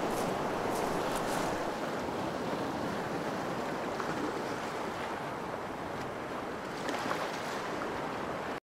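Steady rushing wind noise on the camera's microphone, with a few faint clicks and rustles, cutting off suddenly near the end.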